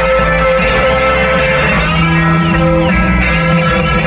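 Live band playing music at a concert: electric guitars over bass and drums, with notes sustained and held.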